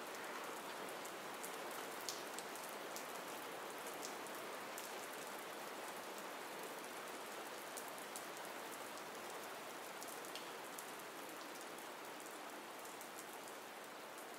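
Steady rain falling, with faint scattered drop ticks, used as a background ambience track.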